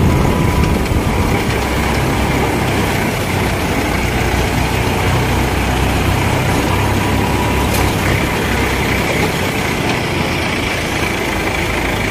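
Mahindra 575 DI tractor's four-cylinder diesel engine running steadily under load as it tows, with road noise from the tyres.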